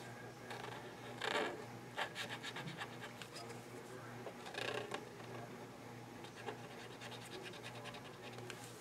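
Faint scratching of a Posca paint marker's nib on paper as it draws and fills small leaf shapes in short strokes, with a couple of louder scrapes about one and a half and four and a half seconds in. A low steady hum sits underneath.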